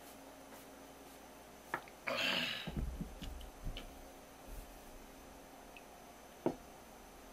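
A small ceramic sake cup set down on a wooden counter, the loudest sound, about two seconds in, followed by sake being poured from a ceramic tokkuri flask into the cup, with a sharp click near the end.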